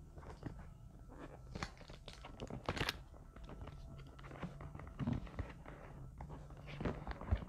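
Cardboard box and its paper inner flaps handled and pulled open by hand: irregular scrapes, crinkles and small tearing sounds, densest about three seconds in, over a faint low hum.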